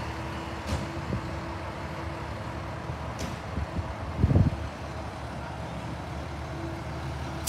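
Fire engine diesels idling in the station bays, a steady hum with a held tone. Two brief air hisses come through, and a louder low thump sounds about four seconds in.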